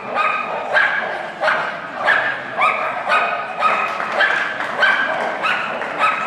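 Miniature schnauzer barking in a steady run of high-pitched barks, a little under two a second, each rising sharply at its start.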